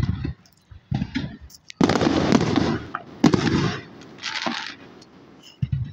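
Aerial fireworks bursting: a run of booms, the biggest about two seconds in, followed by about a second of crackling, with another sharp bang a second later.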